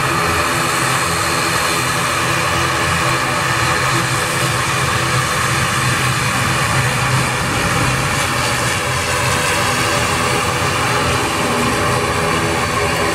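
The ATR 72-600 turboprop's two Pratt & Whitney PW127M engines and propellers running at taxi power. It is a steady drone with several steady tones over it.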